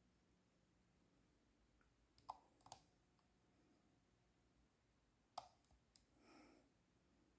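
Faint, quiet handling of a Sony Handycam DCR-HC21 camcorder: a few sharp little clicks of its plastic body and controls, two close together a couple of seconds in and another past the middle, then a soft brief rustle.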